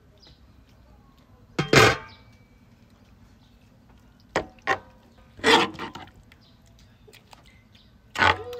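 Metal ladle scraping and knocking against a large metal pan as shrimp in thick sauce are scooped out, in about five separate short strokes, some leaving a brief metallic ring.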